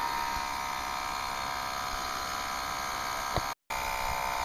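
Slime portable tire compressor running steadily under load with a buzzing whine, inflating a large off-road truck tire. The sound breaks off for a moment about three and a half seconds in, then the same running resumes.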